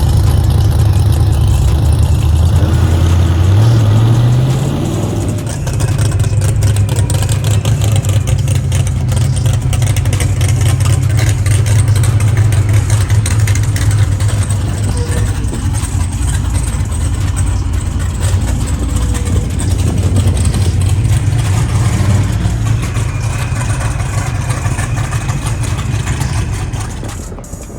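Race car engine running loud and rough at idle, revving up briefly about four seconds in, then settling back into a steady rumble.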